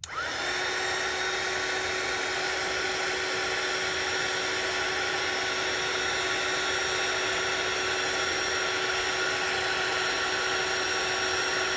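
Craft heat tool switched on and blowing steadily, a loud fan rush with a constant motor whine, drying wet water-brushed ink on paper.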